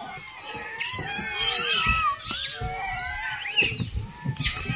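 Rhesus macaques squealing, several overlapping calls that rise and fall in pitch.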